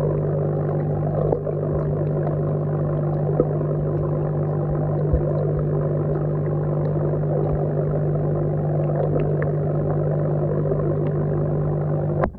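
Steady low drone and bubbling of an aeration air line, heard underwater, with a few faint ticks.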